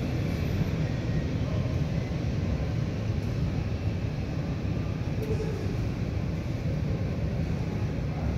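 Boeing 787-9 airliner's GEnx-1B turbofan engines idling as it rolls slowly up to the gate: a steady low rumble.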